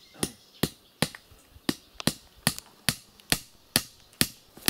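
Steel hammer driving nails into a wooden board with sharp, evenly spaced blows, about two and a half a second.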